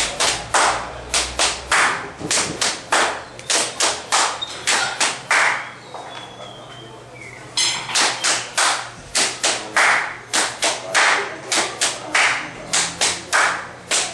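Body percussion: a rhythmic pattern of hand claps mixed with duller slaps on the body, about three to four strokes a second. The pattern pauses about six seconds in and picks up again a second and a half later.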